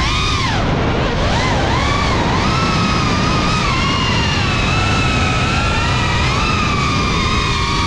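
Small FPV cinewhoop drone's brushless motors and ducted propellers whining in flight over a steady rush of prop wash. The pitch swoops up and down with the throttle during the first couple of seconds, then holds fairly steady.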